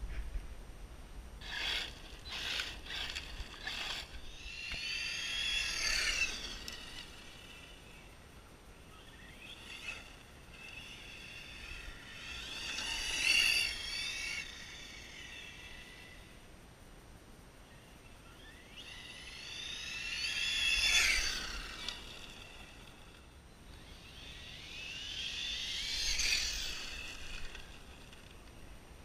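Brushless electric motor of an Arrma 6S short-course RC truck whining at speed as the truck passes four times; each time the high whine climbs in pitch as it nears and drops as it goes away. A run of sharp crackles near the start, over a low rumble.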